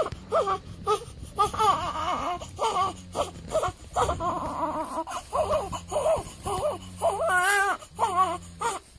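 Newborn baby crying in short, repeated wails, with a longer wavering cry near the end.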